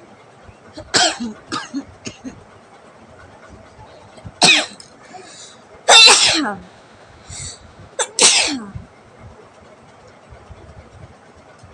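A woman sneezing four times in about eight seconds, each sneeze sudden and falling in pitch, the loudest a little past halfway. The sneezes are set off by tickling the inside of her nose with jackfruit leaf midribs.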